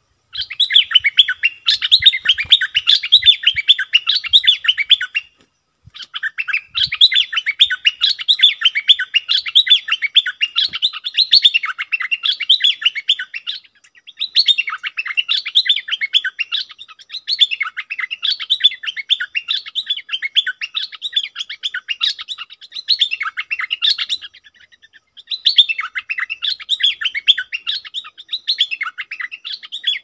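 Stripe-throated bulbul singing: long runs of rapid, bubbling chattering notes, each run lasting about five to ten seconds, with three short pauses between them.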